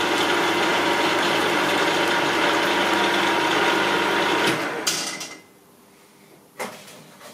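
Milling machine spindle and drive running steadily with a twist drill, just through a pilot hole in steel plate. A steady whine of motor and gears. About four and a half seconds in it is switched off and spins down, with a click, and another click a little later.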